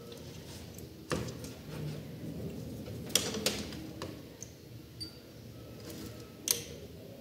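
A few light clicks and scrapes of multimeter probe tips and fingers handling a computer power-supply circuit board: one knock about a second in, a small cluster around three seconds in, and a sharper click near the end.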